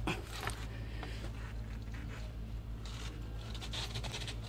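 Faint scrapes and small clicks of a torque wrench being pulled round to angle-tighten a large rocker arm bolt on a Volvo D13 diesel engine, over a steady low hum.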